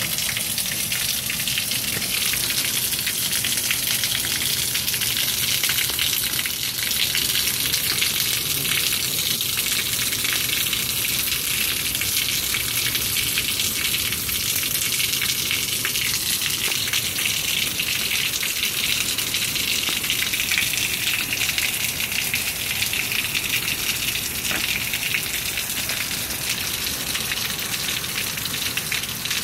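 Heavy rain falling on concrete and grass, with water pouring off the roof edge and splashing onto the walkway: a steady, dense hiss.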